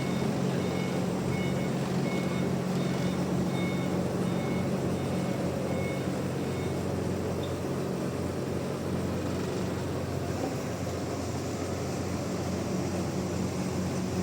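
Heavy machinery engine running steadily while a backup alarm beeps about once a second; the beeping stops about halfway through and the engine keeps running.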